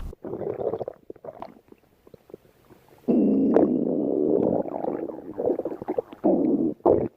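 A person's stomach growling: a short gurgle, about two seconds of faint crackling gurgles, then a long low rumble lasting about three seconds, and short gurgles near the end.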